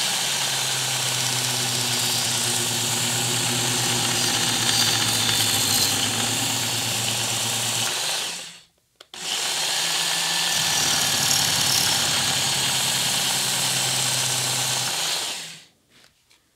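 Work Sharp Ken Onion Edition belt sharpener running with its abrasive belt against the steel blade of a pair of pruning shears. It cuts off about halfway through, starts again under a second later, and stops near the end.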